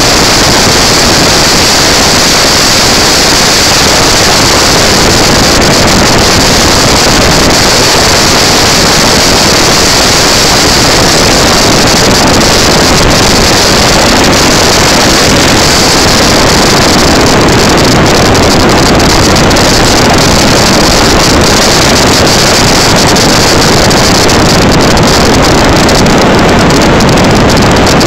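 Clone-class go-kart's single-cylinder engine running at speed on the track, heard from on board and buried in loud, steady wind rush on the microphone.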